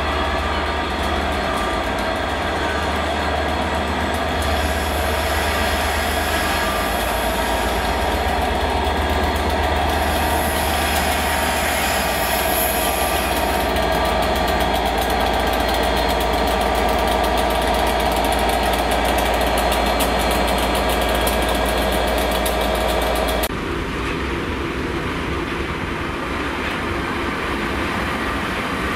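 EWS Class 67 diesel locomotive hauling passenger coaches, its two-stroke V12 diesel engine running with a steady deep hum as it passes at close range, with a high hiss coming and going partway through. About 23 seconds in, the sound cuts abruptly to a diesel multiple unit's engine running.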